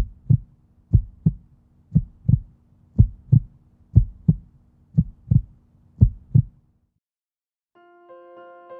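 Heartbeat sound effect: seven double 'lub-dub' thumps at about one beat per second over a faint low hum, stopping a little before the end. Soft piano music starts near the end.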